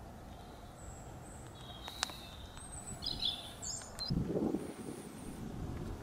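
Outdoor ambience with small birds chirping a few short times, a sharp click about two seconds in, and a brief low rumble about four seconds in.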